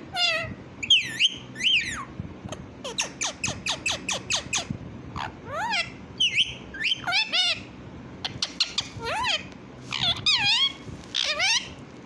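A pet parrot calling in a long string of short squawks and whistles that swoop up and down, with a quick run of clicky chirps about three seconds in.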